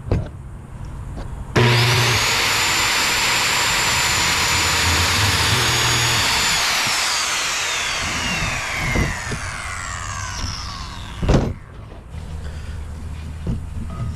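Skil circular saw starting up and cutting through a pine board, a high steady whine under the cutting noise. Its blade then spins down with a falling whine over about four seconds, followed by a single knock.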